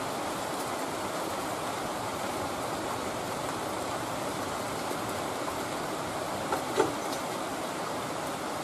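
Heavy rain falling in a steady, dense hiss. Two short knocks come close together about six and a half seconds in.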